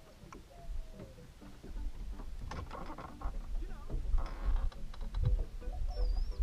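Spinning reel being cranked and the rod worked, giving irregular light clicks and taps, over a low wind rumble on the microphone that grows about halfway through.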